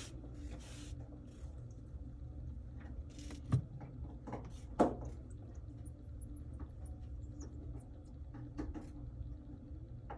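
Hand work on an iPad Pro screen: small clicks, taps and scrapes of a cloth and thin pick against the glass and the bench, with two louder knocks about three and a half and five seconds in, over a steady low hum.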